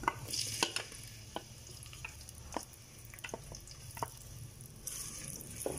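Cumin seeds frying in hot oil, with scattered sharp pops over a faint sizzle. Sliced onion goes into the oil, and a stronger sizzle starts about five seconds in.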